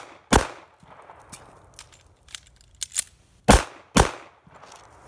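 A pistol fires once just after the start. Light clicks and knocks of a magazine reload follow, then two more shots about half a second apart, a little past the middle.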